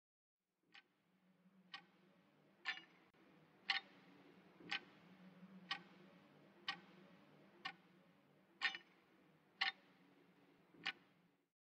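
A wristwatch ticking about once a second, sharp clicks over a faint low hum.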